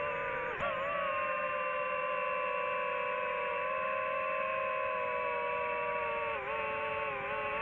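Drone motors and propellers whining in flight at a steady pitch, dipping briefly shortly after the start and again about six and a half seconds in.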